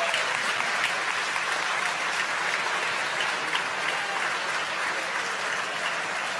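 A crowd applauding steadily, greeting the confirmed stage separation of the Falcon 9 rocket.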